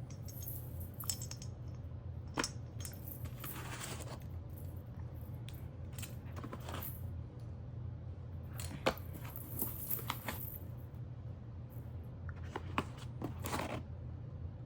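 Scattered small clicks, taps and rustles of an unboxed action camera and its packaging being handled, over a steady low hum.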